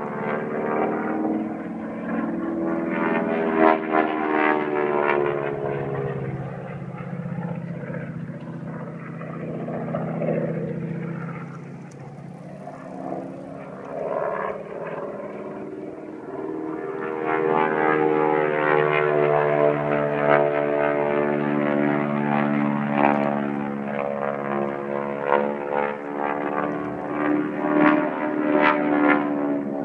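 Propeller airplane flying aerobatics overhead, its engine note slowly rising and falling in pitch through the loops and dives. The sound fades to its quietest a little before the middle, then swells loud again for the last half.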